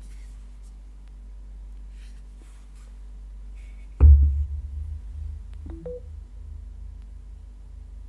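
A Samsung Galaxy S21 Ultra in a soft clear case set down on a wireless charging pad about four seconds in: one sharp thump with a low rumble dying away over a second or two. Faint handling rustles come before it, and two short faint tones follow it.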